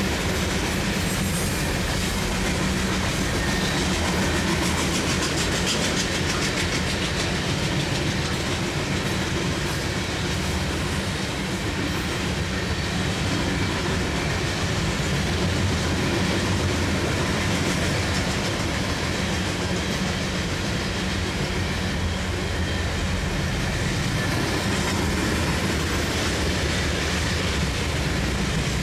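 Freight train of covered hopper cars rolling past: a steady rumble of steel wheels on the rails, with faint clicks as the wheels run over the rail joints.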